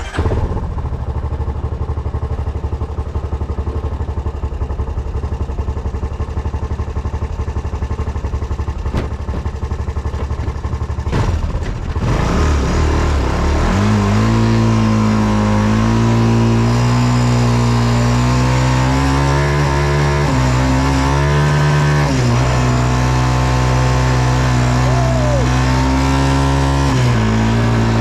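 ATV engine idling with a fast, even pulse. About eleven seconds in it revs up and pulls away, its pitch rising and falling with the throttle as it rides.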